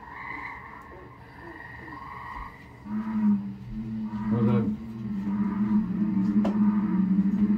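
Frogs calling on a vinyl nature record: short tree frog notes in the first couple of seconds, then a deep, steady low call that grows louder from about three seconds in.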